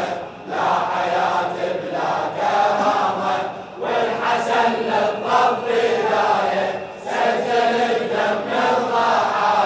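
Congregation of men chanting a latmiya refrain in unison: long sung phrases, each a few seconds long, broken by short breaths about half a second, four and seven seconds in.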